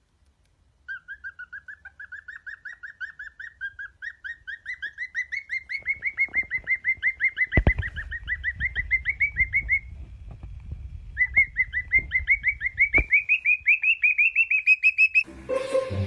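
Cockatiel chirping fast and evenly, about five short chirps a second, slowly climbing in pitch; it stops for about a second midway, then starts again. A couple of sharp knocks come between the chirps.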